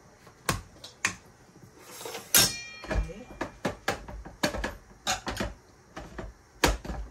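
Kitchen utensils being handled: irregular clicks and knocks, about a dozen, with one brief metallic clink that rings about two and a half seconds in.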